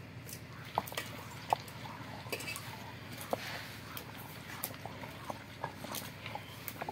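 Crab being ground by hand in a stone wet-grinding basin (aattukal): scattered short clicks and crunches of stone and shell, over a steady low hum.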